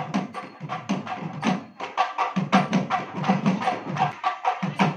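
Traditional South Indian wedding music led by a thavil barrel drum played in quick, sharp strokes over a steady rhythmic pulse, with a brief let-up in the low beat about two seconds in.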